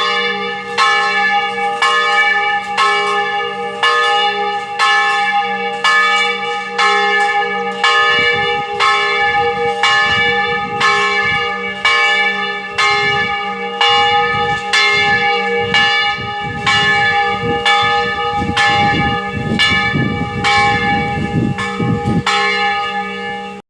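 A large church bell rung in a steady rhythm, about three strokes every two seconds, each stroke ringing on into the next. From about eight seconds in, an uneven low rumble runs underneath.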